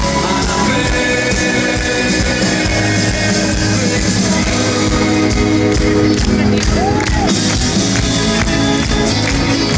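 Live indie rock band playing loudly through a festival sound system, heard from the crowd: a full band passage with guitars and sustained notes.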